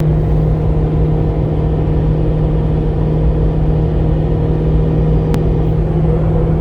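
Car driving at highway speed: a steady road rumble with a constant low-pitched hum running through it, the weird sound the driver noticed. There is a single faint tick about five seconds in.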